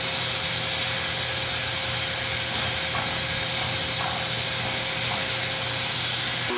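Steam locomotive hissing steadily as it rolls slowly past, steam venting from beneath the engine, with a faint steady tone under the hiss.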